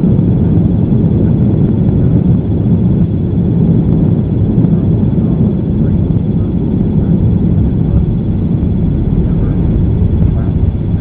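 Airbus A330-200 heard from inside the passenger cabin during landing: a loud, steady low rumble of engine and airflow noise.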